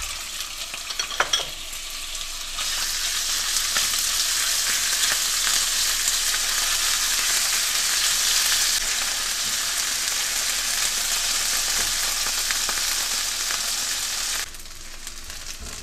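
Diced raw chicken sizzling in hot vegetable oil in a nonstick frying pan, stirred with a silicone spatula. The sizzle gets louder a couple of seconds in and drops off abruptly near the end.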